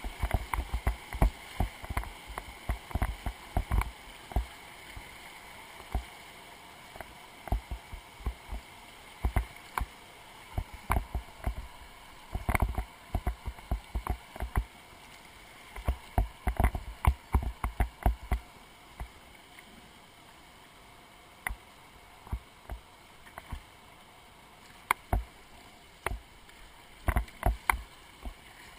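River water rushing past a kayak running a rapid, with frequent sharp splashes of water against the boat and the lens-level camera. The splashes come in clusters, with a calmer stretch of steady rushing in the second half.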